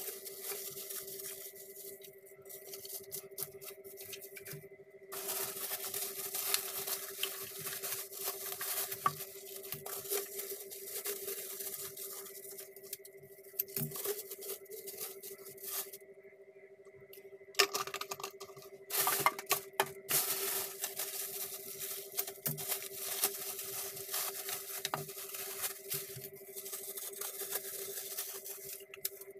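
Plastic packaging crinkling and tearing as hands unwrap and handle it, in long spells broken by short pauses, with a few sharper clicks about two-thirds of the way through. A steady hum runs underneath.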